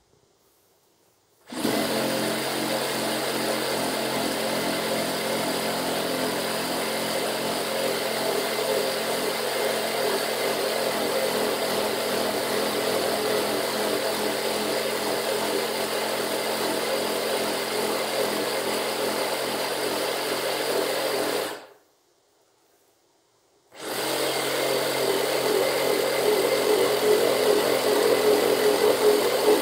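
Makita reciprocating saw cutting a curve through a thick wooden slab. It starts about a second and a half in and runs steadily for about twenty seconds, stops for about two seconds, then starts again and cuts on, growing louder near the end.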